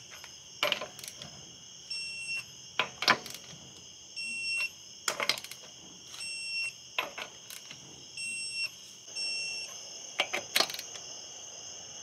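A click-type torque wrench snapping as each wheel lug nut is tightened to torque: a series of sharp single clicks a second or two apart.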